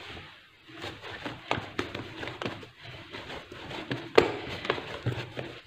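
Hands kneading a hot, freshly cooked flour-and-semolina dough on a hard countertop: irregular soft slaps and pats, with one sharper knock about four seconds in.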